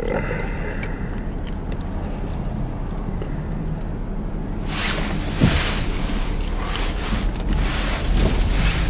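Car interior noise: a steady low engine and road rumble. About five seconds in, a louder rush of air and road hiss comes in and stays, with a thump just after.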